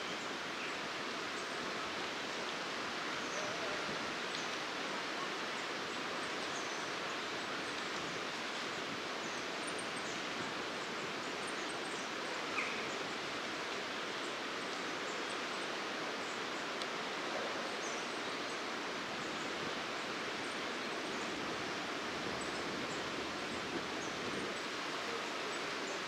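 Steady outdoor background hiss with faint, very high, thin calls of goldcrests scattered through it, and one brief sharper sound about halfway.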